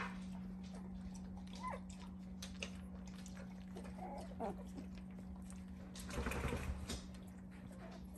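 Two-week-old puppies giving short faint squeaks and whimpers as they squirm in a pile, with scratching and shuffling on the fleece bedding that is loudest about six seconds in. A steady low hum runs underneath.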